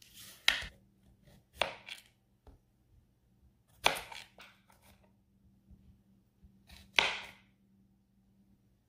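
A cucumber being peeled: about five separate short scraping strokes at uneven intervals, the 'ka-la ka-la' of the skin coming off.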